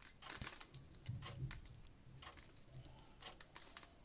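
Rubik's cube faces being turned by hand: a faint, irregular run of short plastic clicks and rattles as an edge piece is worked into place.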